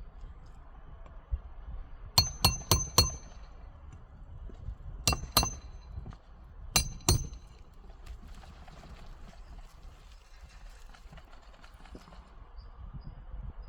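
Hammer striking metal in three quick groups: four sharp hits, then two, then two, each with a short metallic ring. This fits nails being driven in a shingle repair.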